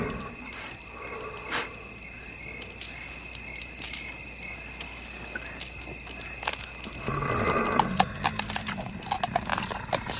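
Crickets chirp steadily in rapid repeating pulses. About seven seconds in comes a low growl, then a quick run of sharp crunches as a chicken wing is chewed, bones and all.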